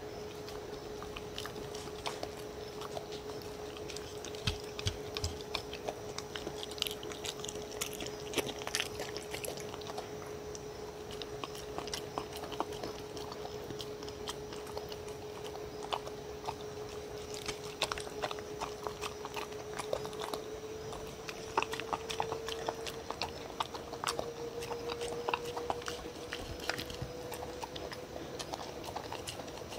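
A dog eating noodles from a wooden bowl: irregular small clicks, chews and licks as it works at the bottom of the bowl. A faint steady hum runs underneath and rises slightly in pitch in the last third.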